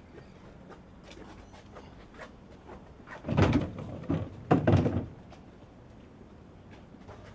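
Plastic wheelie bin lid banging: two loud, heavy knocks about a second apart, a little over three seconds in, as the lid is lifted and dropped shut.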